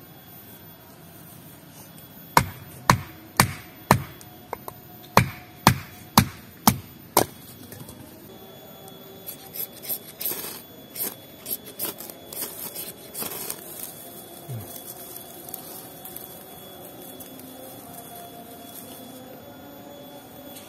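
A run of about nine sharp, loud chopping knocks on wood, roughly two a second, followed by lighter clicks and rustling.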